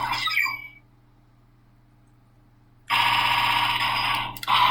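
Electronic sound effects from a Magnum Shooter 40X toy gun's speaker: a gliding effect dies away in the first second, then after a pause a loud, rapidly warbling alarm-like tone starts about three seconds in and stops with a click near the end.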